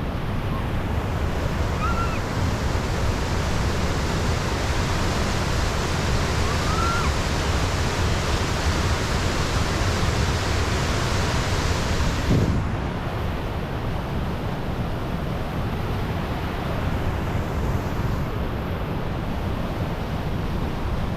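Steady rushing noise of wind buffeting the microphone over running water, with a strong low rumble and two faint short calls in the first half. About twelve seconds in, the brighter hiss cuts off suddenly, leaving a duller rumble.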